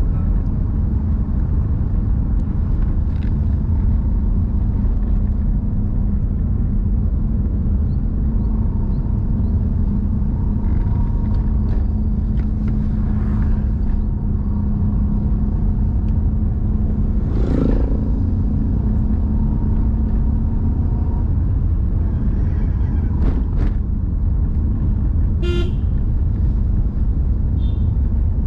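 Steady low rumble of road and engine noise inside a moving car, with a steady hum that stops about two-thirds of the way through. Near the end a vehicle horn gives a short toot.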